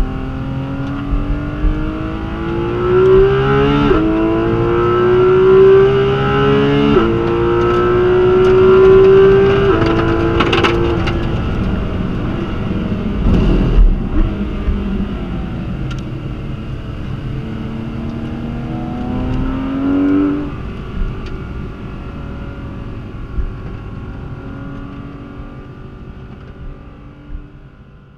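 High-revving sports car engine accelerating hard through the gears: its pitch climbs and drops sharply at three quick upshifts about three seconds apart. It then slows, with the pitch falling and rising through further gear changes, and the sound fades away near the end.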